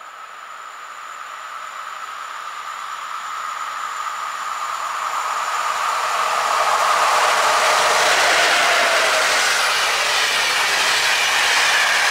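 An EP07 electric locomotive hauling a passenger train approaches and passes close by. A steady high hum is heard as it nears, then the rumble and rush of wheels on rails grows louder over the first seven seconds and stays loud as the coaches go past.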